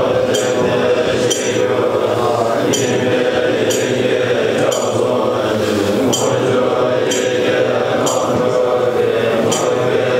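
A group of Tibetan Buddhist monks chanting a liturgy in unison, a steady low-pitched recitation, with short high metallic clinks ringing out now and then over it.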